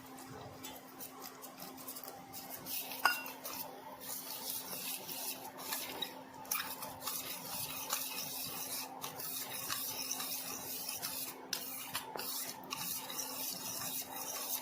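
A spoon stirring cornflour into milk in a bowl: quick, irregular scraping and clinking of the spoon against the bowl, with a sharp clink about three seconds in.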